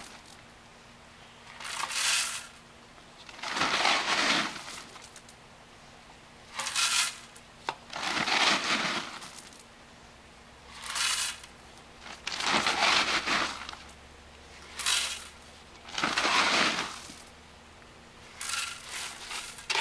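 Expanded clay pebbles rattling as they are scooped from the bag and poured into a large glazed ceramic pot, in about nine pours of a second or so each with short pauses between.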